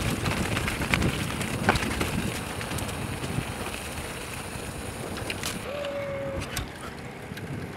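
Mountain bike rolling fast down a rough forest trail, with tyre noise, rattles and knocks over the bumps, and wind on the microphone. About six seconds in, after a cut, the ride goes quieter on smooth pavement, with a short steady high tone.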